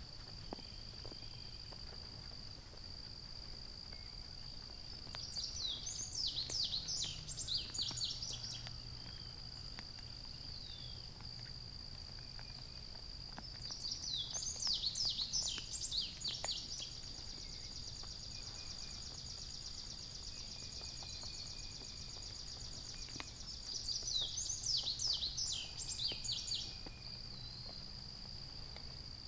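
Summer evening outdoor ambience: a steady, high-pitched insect drone runs throughout. Three louder bursts of rapid, high chirping notes, each about three seconds long, come roughly ten seconds apart.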